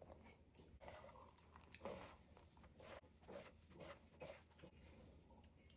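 Faint, irregular soft patting and rustling of chicken pieces being tossed in a flour and cornstarch coating.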